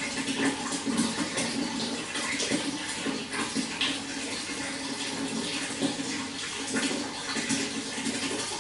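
Running water flowing steadily, with a constant rushing sound and many small irregular splashes and gurgles.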